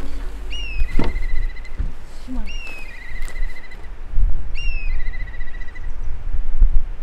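A songbird repeating the same short phrase about every two seconds, a rising-and-falling whistle followed by a short even trill, over low wind rumble on the microphone. About a second in, a single sharp thump as the car's tailgate shuts.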